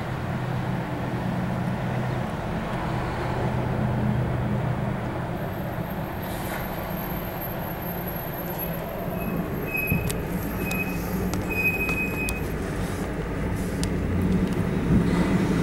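CSX freight train's diesel locomotives running past with a steady low engine drone, strongest in the first few seconds, over a constant wash of street traffic; the traffic grows louder near the end.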